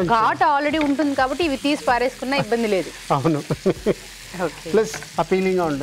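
Talking over chopped onions sizzling in hot oil in a frying pan as they are stirred with a spatula.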